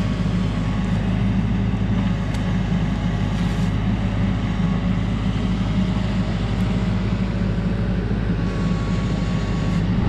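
TYM 574 compact tractor's 55 hp diesel engine running steadily while it powers the backhoe digging in muck.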